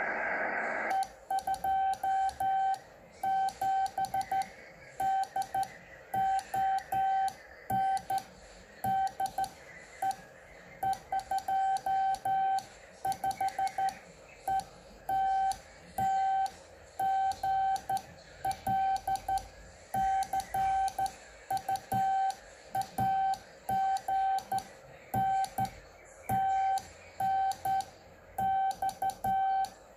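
Morse code (CW) being sent on a 2 m transceiver: a single steady tone keyed on and off in dots and dashes, the sidetone of the station transmitting. A hiss of receiver noise cuts off about a second in, as the sending begins.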